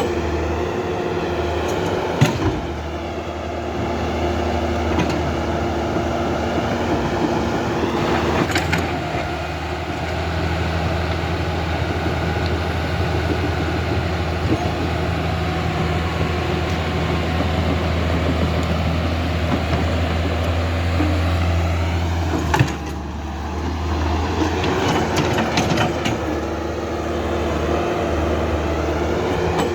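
Huina radio-controlled excavator's motors and gearing whirring steadily as the machine works, the pitch shifting every few seconds as different movements start and stop. Two sharp knocks are heard, about two seconds in and again near twenty-three seconds.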